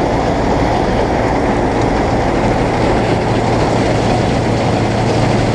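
Bizon Z040 combine harvester running while harvesting: the loud, steady din of its engine and threshing machinery, with a steady low engine hum underneath.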